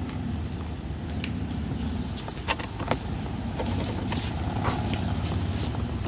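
Outdoor background: a steady low rumble with a thin, steady high whine over it, broken by a few sharp clicks, the loudest two about halfway through.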